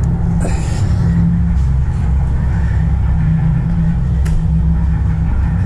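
The twin inboard engines of a Chris Craft Corinthian 380, warmed up and set to idle, running with a steady low rumble. A short rustle about half a second in and a faint click near the end of the fourth second.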